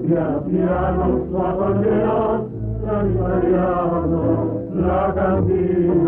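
Tango orchestra playing with a male voice singing over it.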